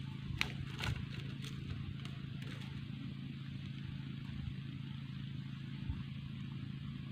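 A steady low mechanical hum at one pitch, with a few sharp clicks in the first second.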